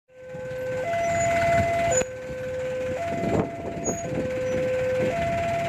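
Railway level-crossing warning alarm: a two-tone signal alternating between a lower and a higher tone, each held about a second, sounding while the barrier is down to warn of an approaching train.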